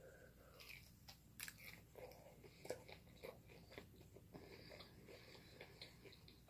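A person chewing and biting food with faint, irregular wet mouth clicks and small crunches.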